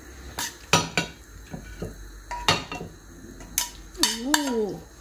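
A metal spoon scraping and clinking against a saucepan as thick rendang is scooped out into a ceramic dish: a run of irregular sharp clinks and scrapes.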